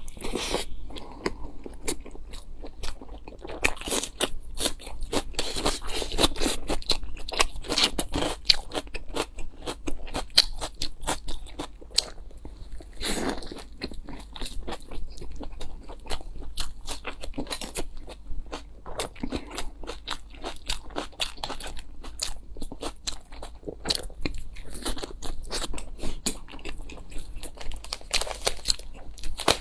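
Close-miked eating: rapid crunchy bites and chewing of food, a dense run of crisp crackles throughout.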